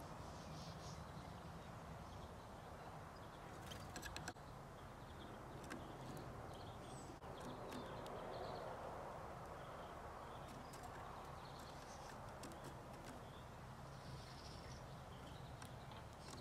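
European goldfinches moving about a wire cage trap: scattered light taps, with a short cluster about four seconds in, and faint high twittering calls, over steady low background noise.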